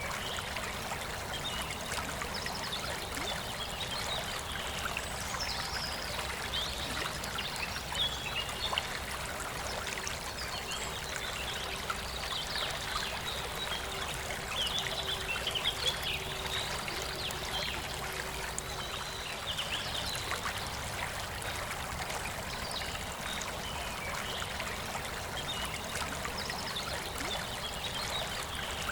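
Forest river flowing steadily, with birds singing in short calls on and off above the water.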